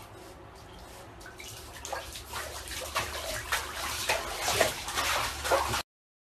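Water splashing and sloshing in a bathtub as a Shiba Inu wades and paddles in it, over a low hum. The splashing builds from about a second and a half in, gets louder, then cuts off abruptly near the end.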